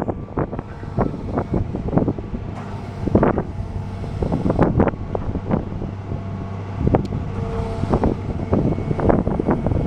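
Hitachi EX200-5 LC excavator's diesel engine running steadily, with irregular knocks and clanks throughout.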